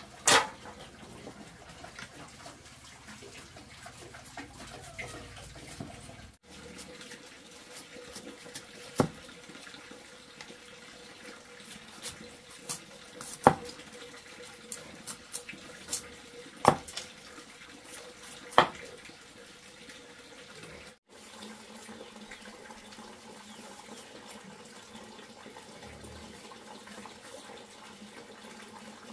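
Water running steadily, with a few sharp knocks or clatters now and then.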